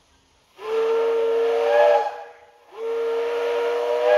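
Steam whistle of Porter steam locomotive No. 58, blown in two long blasts of about a second and a half each. Each blast is a steady chord of several tones with a hiss behind it, and it wavers slightly upward just before it cuts off.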